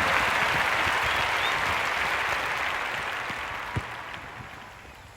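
Applause from a crowd, likely a dubbed-in clapping sound effect, fading away gradually over about four seconds.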